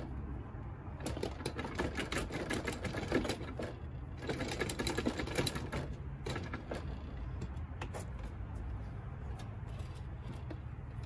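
Cordless impact driver hammering in two bursts of a couple of seconds each, spinning off a scooter's front axle nut. A few lighter, scattered knocks follow as the hardware and wheel are handled.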